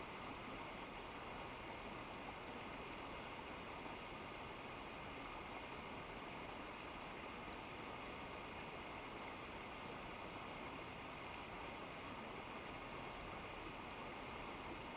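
Steady rush of a mountain stream's flowing water, an even hiss with no breaks.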